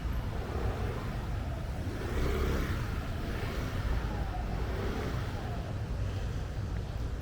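City street traffic: a steady low rumble of passing vehicles that swells a little between about two and four seconds in.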